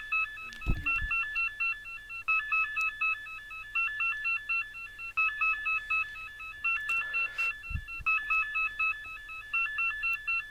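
Mobile phone ringtone: a short melody of electronic beeps, repeating about every second and a half. A low thump sounds about a second in and again near eight seconds.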